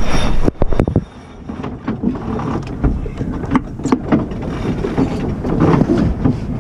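Sailboat under way: rushing wind and water noise with scattered knocks and clicks, likely from the deck gear. The noise drops sharply about a second in, then builds up again.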